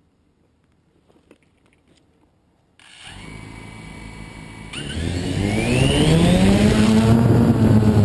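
DJI Phantom 2 quadcopter's motors and propellers starting up about three seconds in with a steady whir, then rising in pitch and getting much louder as it throttles up and lifts off. Near silence before the motors start.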